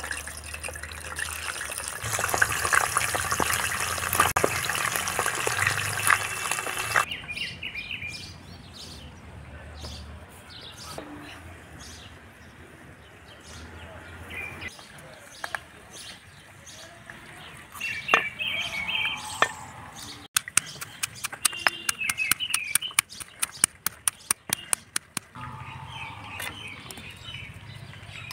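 Stone pestle pounding dried red chillies in a heavy stone mortar: rapid, regular sharp knocks, about three or four a second, starting two-thirds of the way through. Before that, a loud hissing crackle for several seconds cuts off abruptly, followed by a quieter stretch with birds chirping.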